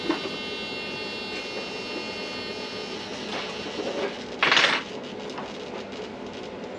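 Electric RC helicopter flying: a steady high whine from its motor and rotor. A brief loud rush of noise cuts in about four and a half seconds in.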